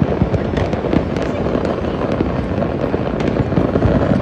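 Fireworks going off in a dense, continuous barrage: many sharp pops and bangs in quick succession over a steady low rumble.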